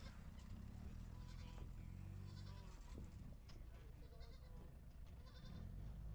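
Pickup truck's engine running at low revs as the truck creeps slowly forward, a steady low hum.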